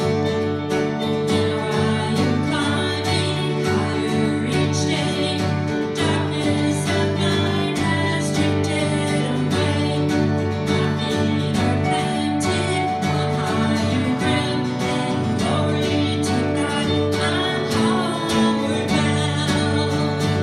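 A live worship band plays a hymn. An acoustic guitar strums and an electronic keyboard holds sustained notes, while a woman sings into a microphone.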